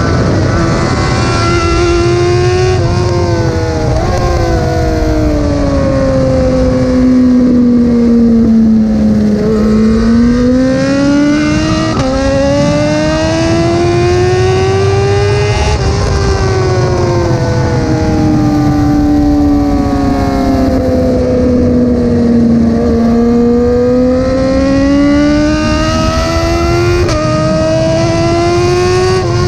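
Motorcycle engine running at speed, its note sinking slowly and climbing again several times as the rider rolls off and opens the throttle, with a few sudden steps in pitch at gear changes. Heavy wind rumble on the microphone runs underneath.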